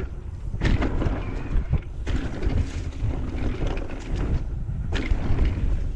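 Wind buffeting an action camera's microphone while a mountain bike rides fast down a dirt trail, with irregular knocks and rattles from the bike over bumps.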